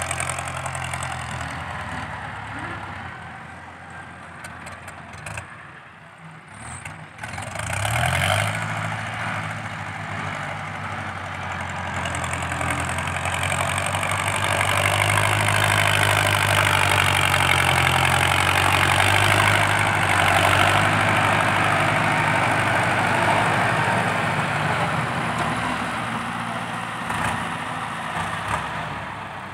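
Ford 6640 tractor's diesel engine, with a loud exhaust, working under load as it pushes soil with its front blade. It revs up about eight seconds in, is loudest through the middle and eases off toward the end.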